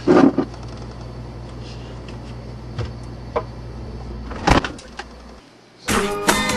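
Things being knocked and handled inside an open refrigerator over a steady low hum, with a loud clatter at the start and another about four and a half seconds in. About a second before the end it cuts to acoustic guitar music.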